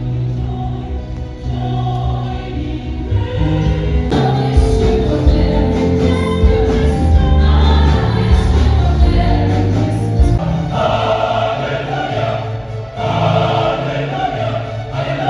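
Background music: a gospel-style song with a choir singing over a steady beat. A heavy bass line comes in about four seconds in and drops out about ten seconds in.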